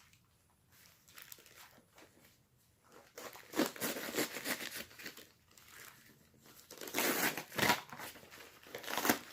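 Packing material crinkling and crumpling as a parcel is unwrapped by hand, in irregular bouts that start about three seconds in.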